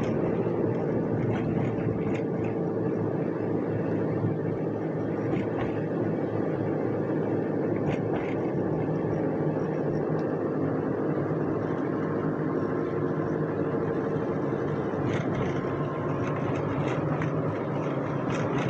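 Steady engine and road noise of a car driving, heard from inside the cabin, holding an even level with a faint constant hum.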